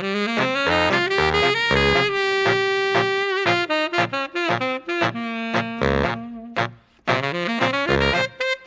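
Background jazz music with a saxophone playing the melody over a walking bass line, briefly dropping out about seven seconds in.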